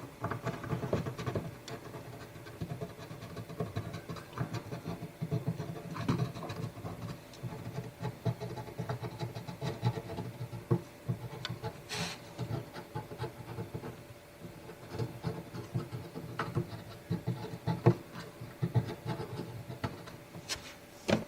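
Watercolor pencil scratching across primer-coated synthetic paper in quick, irregular short strokes, with a couple of sharper clicks, over the steady rush of a mountain stream.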